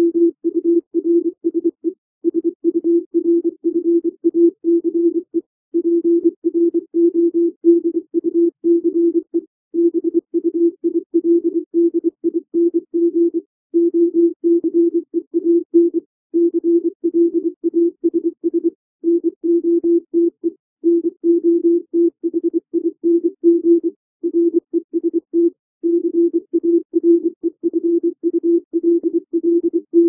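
Computer-generated Morse code (CW) at about 24 words per minute: one steady tone keyed on and off in quick dits and dahs, with short letter gaps and longer pauses between words, spelling out plain English words.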